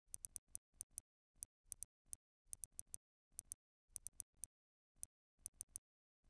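Faint, sharp tick sounds from a smartphone's touch interface, made while an alarm time is being set. They come irregularly, often in quick runs of two to four, with dead silence between.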